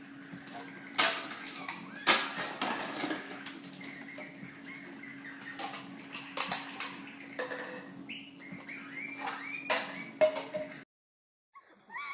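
Several sharp knocks and clattering, a few of them loud, with faint high chirping squeaks in between over a steady low hum; it all cuts off suddenly near the end.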